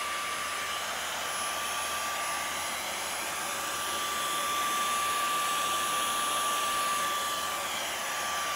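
Cordless stick vacuum, held in the hand without its wand, running steadily: an even rush of air with a steady whine over it.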